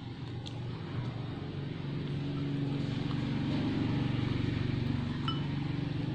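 Low engine hum that grows louder over a few seconds and then holds, with a light clink or two of a metal spoon against a ceramic bowl, one about five seconds in.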